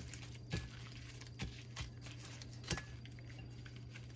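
Gloved hands rubbing and turning wet raw salmon pieces on a plate: a few short wet squishes and plastic-glove crinkles, each separate, over a steady low hum.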